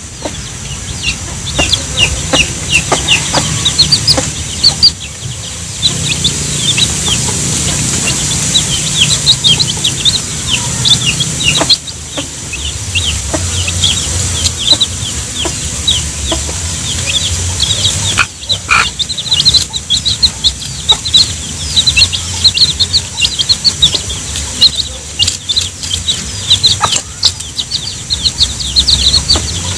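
Young chicks peeping constantly in quick high-pitched cheeps while a mother hen clucks low to them over food.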